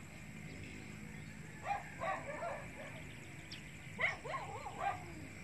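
Short, pitched animal calls in two bursts, one about two seconds in and another about four seconds in.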